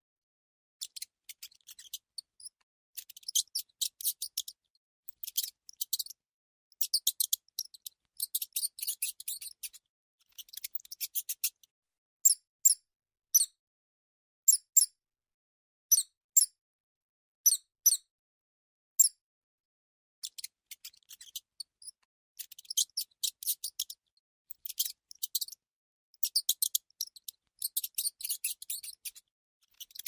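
Mouse squeaking: short high-pitched squeaks, some single and some in quick flurries, with silent gaps between.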